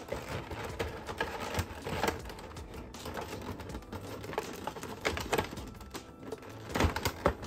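Plastic toy packaging and accessories being handled: a run of small clicks and rustles, with a few louder clicks near the end.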